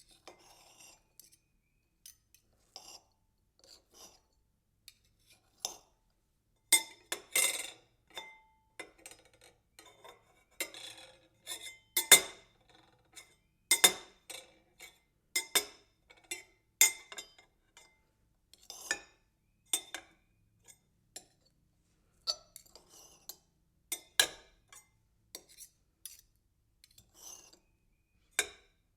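A metal knife clinking and rattling against a hard surface, with short scraping cutting strokes. The clinks are irregular, about one a second, some ringing briefly.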